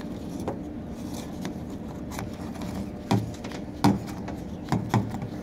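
Handling of the Ryobi angle grinder's housing and power cord: a few scattered sharp clicks and knocks as parts are pulled back and fitted together, the loudest about three and four seconds in, over a steady low hum.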